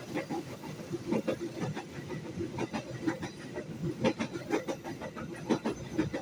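Train running past, with an irregular run of clattering knocks, several a second, over a low rumble.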